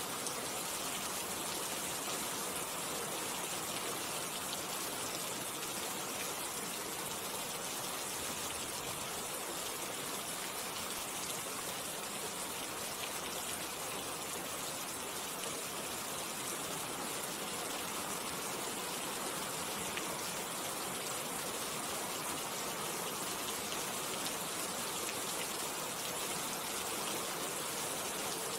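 Steady rainfall: an even hiss of many drops, with a few single drops standing out now and then.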